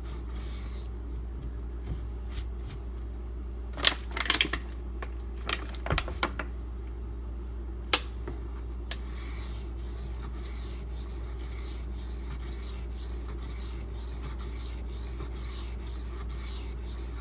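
A steel knife blade being stroked back and forth on a coarse 400-grit Imanishi Latte waterstone, a gritty scraping at about two strokes a second through the second half. A few sharp knocks come in the first half.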